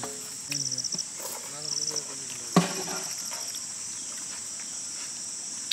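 Insects in a steady, high-pitched outdoor chorus, with two short rapid chirping trills in the first two seconds. A single sharp knock sounds about two and a half seconds in.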